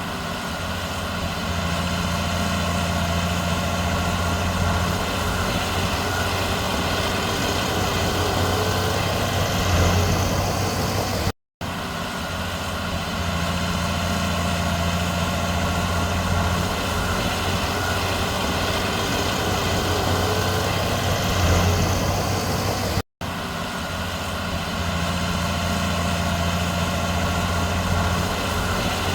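Heavy diesel engine of earthmoving machinery running steadily with a low drone, with a slight surge in level about 10 s and 21.5 s in. The sound cuts out for an instant twice, about 11.5 s apart.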